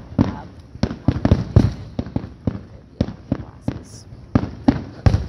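Aerial fireworks shells bursting in a finale barrage: rapid, irregular booms, about three a second, each trailing off in a short echo.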